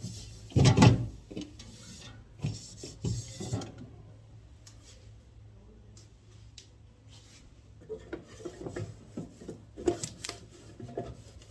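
Scattered knocks, clatter and rubbing from fridge parts and items being handled: a loud thump about a second in, a few lighter knocks after it, a quieter stretch in the middle, then more clattering near the end.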